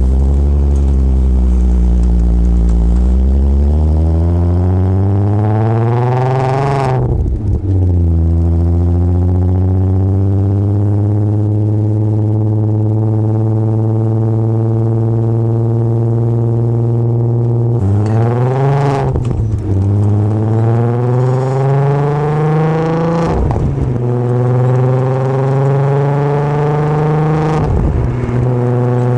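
Volkswagen Jetta's VR6 engine heard through its cat-back exhaust, miked at the tail, pulling through the gears. The exhaust note climbs steadily and drops sharply at an upshift about seven seconds in, then holds a steady cruise. It climbs again with upshifts near the end.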